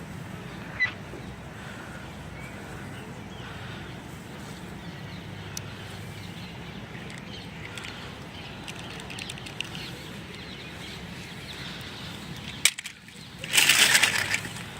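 Miniature toy packaging being handled: small plastic clicks and rustles over a steady low hum, then a sharp click and a loud crinkling rustle lasting about a second near the end.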